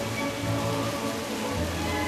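Music playing over the steady splash and patter of a dancing fountain's water jets.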